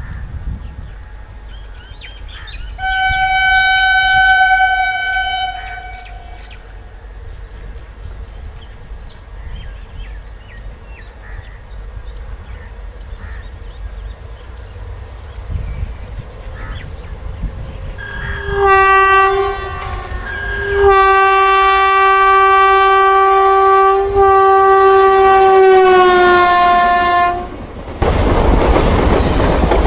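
Indian Railways locomotive horn: a short high-pitched blast about three seconds in, then a long lower-pitched blast from about 18 seconds, broken twice, whose pitch drops near the end as the locomotive passes. Near the end the horn gives way to the loud noise of the train passing close by.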